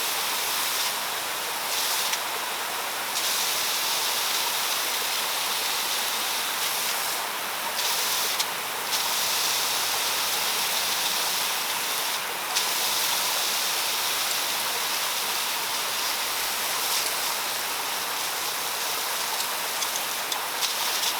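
Rain Bird 5000 Series rotor sprinkler spraying water: a steady hiss of spray that swells a little at moments as the stream sweeps past, while its throw distance is being turned down.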